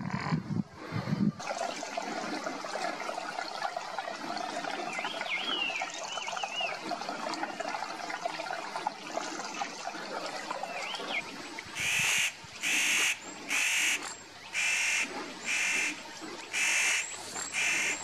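A bird giving a run of seven loud, harsh calls about once a second in the second half, over a background of faint birdsong with a few thin whistled notes.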